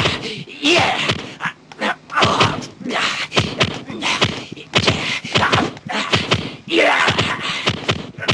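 Dubbed kung fu film sound effects for a Hung Gar demonstration: a rapid string of sharp snapping and slapping strike sounds with short noisy whooshes, and a couple of short shouts.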